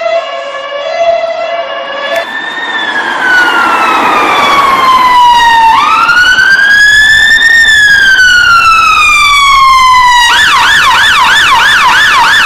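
British ambulance siren switching through its patterns. First it plays an alternating two-tone, then about two seconds in a slow wail that falls, rises and falls again, and about ten seconds in a fast yelp of about three rises and falls a second.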